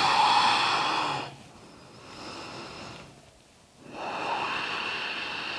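A person breathing slowly and audibly while holding the downward dog yoga pose. A long loud breath comes first, then a fainter one, then another long drawn breath starting about four seconds in.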